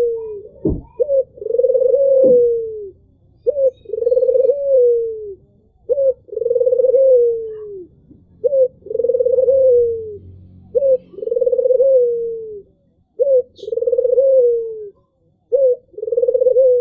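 Albino Barbary dove (puter) cooing: a short note followed by a long coo that falls away at the end, repeated about every two and a half seconds, seven times.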